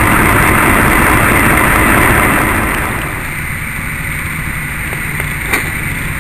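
SM30 shunting diesel locomotive's engine running as it passes close hauling tank wagons, loud at first and then dropping off about two and a half seconds in as the train moves away, leaving a lower steady drone. A single sharp knock near the end.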